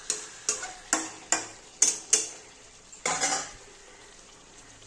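A metal spatula knocking against a steel kadai of thick egg-and-potato curry: six sharp clinks about two a second, then one longer scrape about three seconds in.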